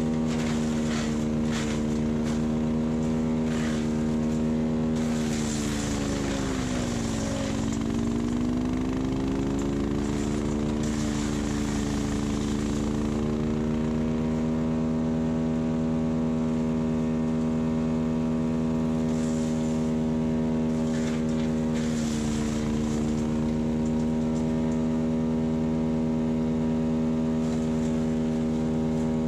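Tractor engine running the PTO wood chipper at steady throttle. It bogs down and recovers as material is fed through, with crackling and grinding from the chipper, most heavily a few seconds in and again around twenty seconds in.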